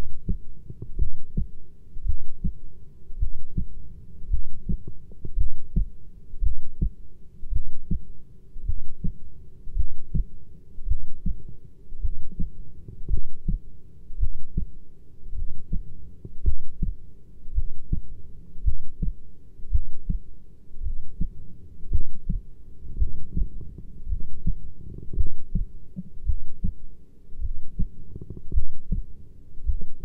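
Human heartbeat: low, even thumps at about one beat a second, steady throughout.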